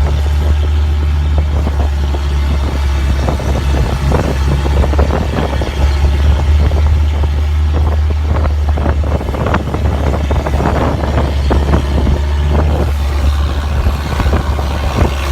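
Tour boat's engine running at a steady low drone while under way, with wind buffeting and flapping against the microphone.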